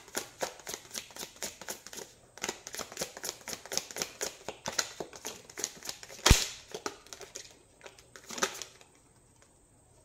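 A deck of cards being shuffled by hand: a rapid run of crisp card clicks, with one sharper knock about six seconds in, and the shuffling stops near the end.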